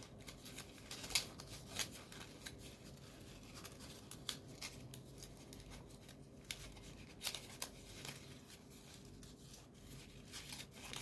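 Folded paper origami units being handled and slotted together: soft paper rustling with scattered light clicks and crinkles, a few of them sharper, about a second in and again past the middle.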